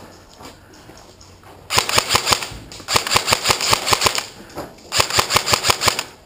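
Airsoft rifle, the player's KWA SR10, firing three rapid bursts of sharp cracks, several shots a second, starting about a second and a half in.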